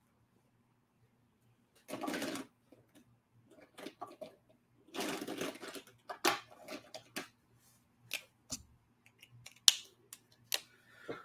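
Copic art markers being handled off the page: two short rustles, then a string of sharp clicks, the loudest near the end, over a faint steady hum.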